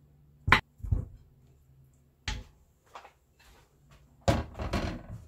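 Pieces of raw cow trotter dropped by hand into an empty stainless steel stockpot: separate knocks about half a second, one second, two seconds and three seconds in, then a quick run of several knocks near the end.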